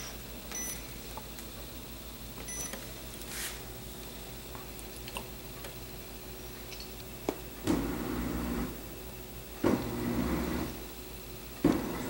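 Stainless-steel dishwasher starting a cycle: its control panel beeps twice in the first few seconds over a low steady hum. From about eight seconds in, the pump and water come on in surges about every two seconds.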